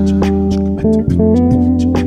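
Six-string Cunningham RLJ6 electric bass guitar being plucked, playing a run of sustained notes that change pitch every fraction of a second, with sharp clicks at the note attacks.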